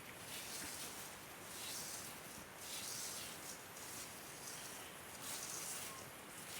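Maize and sorghum kernels being stirred in a hot pan while they pop, a faint hissing swish that swells and fades about once a second.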